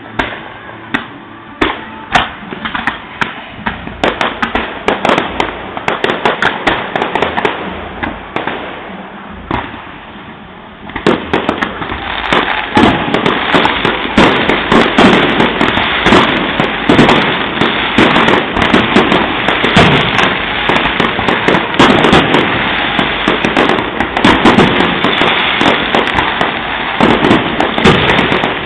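Fireworks going off: scattered sharp bangs, then about eleven seconds in a sudden dense barrage of rapid bangs and crackling that keeps going.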